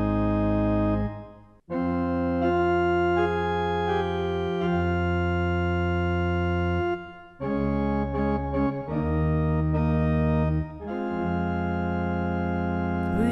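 Organ playing slow, sustained chords as the introduction to a sung Gospel Acclamation. The first chord fades out about a second and a half in and new chords begin, with another short break about seven seconds in.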